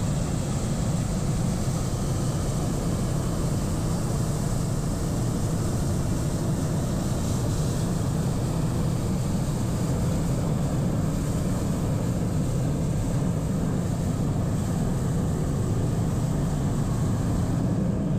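Hot air balloon propane burner firing, a steady rushing noise that holds at one level without a break.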